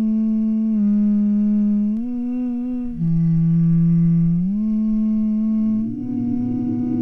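A slow hummed melody: one voice holding long low notes and sliding smoothly from one to the next. A low, rough noise joins underneath about six seconds in.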